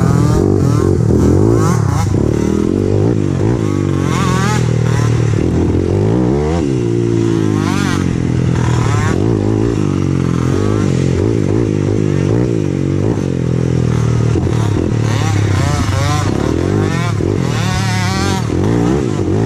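Several small peewee racing quad (youth ATV) engines revving up and down, overlapping one another; one engine's pitch drops and climbs again about a third of the way in.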